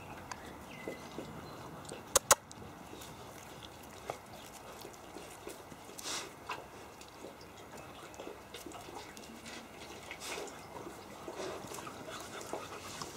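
Caucasian shepherd puppies moving about on bare dirt: scattered small clicks and scuffs, with two sharp clicks close together about two seconds in.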